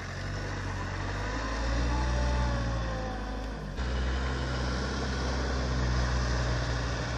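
Off-road vehicle engine running steadily. The sound cuts off abruptly about four seconds in and picks straight up again.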